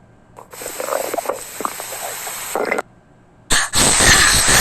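Cartoon stomach growl sound effect: a hissing, gurgling sound for about two seconds, then, after a short pause, a louder noisy growl starts near the end.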